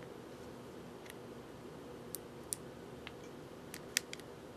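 Small, sharp plastic clicks and fingernail ticks as a micro SD card is worked out of the card slot of an HTC HD2 phone with its back cover off. The clicks come irregularly, the loudest about four seconds in, over a faint steady hum.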